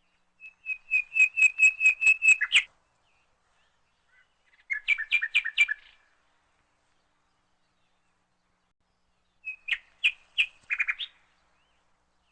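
A bird chirping in three short bursts of rapid, repeated high notes, each burst lasting one to two seconds with pauses between.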